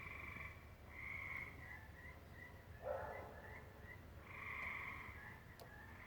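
Faint, repeated chirping calls from an unseen animal in a tall tree: a few drawn-out calls of up to about a second, with short chirps between them. About three seconds in there is one brief, harsher, lower call. The recordist cannot tell whether the caller is even a bird.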